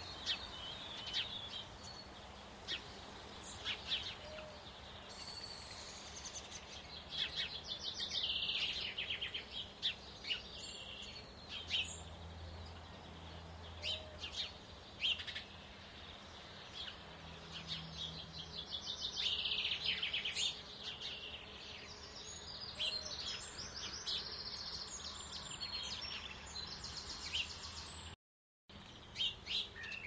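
Small songbirds singing and calling, with repeated rapid trills and short chirps, over a faint steady low hum; the sound drops out briefly near the end.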